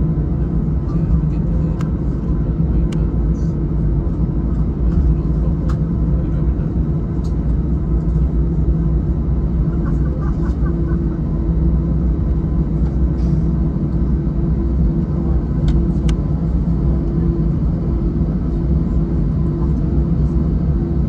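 Steady low drone inside the cabin of an Airbus A320-214 on the ground, a constant hum with a few faint clicks.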